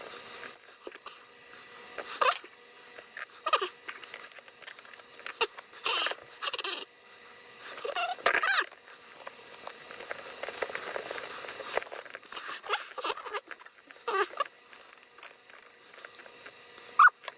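Fast-forwarded sound of a flexible helping-hands soldering station being assembled: scattered plastic clicks and rattles as segmented arms, clips and a magnifier are pushed onto the base, with a few short squeaks.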